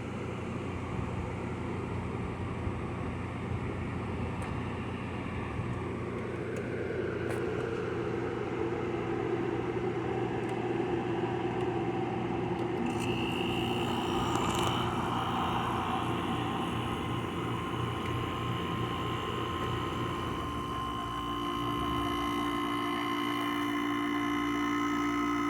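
Midea 5000 BTU window air conditioner running on low fan, a steady hum with a few held tones. The tones shift about halfway through and again near the end.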